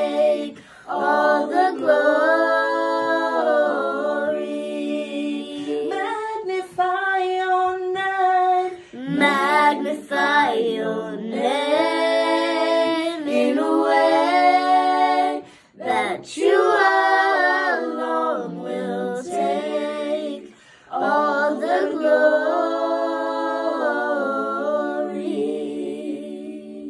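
A young girl singing a cappella: several phrases of long held notes with bends in pitch and short breaths between, the last note fading out at the very end.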